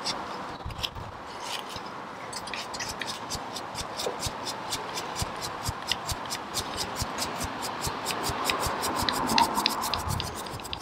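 The gear mechanism of a Land Rover Freelander 2 rear wiper motor being worked back and forth by hand, rubbing with a rapid run of clicks, about four to five a second. The mechanism is stiff from seized old grease and is freeing up.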